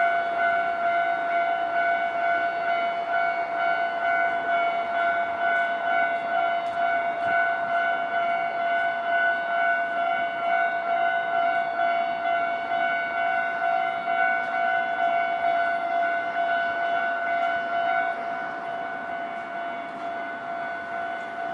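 Japanese railway level-crossing alarm ringing its repeated electronic bell tone steadily; it drops somewhat in level about three-quarters of the way through.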